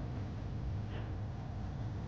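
Cummins ISX diesel engine of an International Paystar dump truck running with a steady low rumble.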